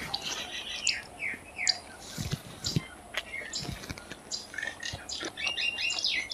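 Birds chirping in the background in short falling chirps, with a quick run of repeated chirps near the end, over the clicks and smacks of someone chewing a mouthful of food.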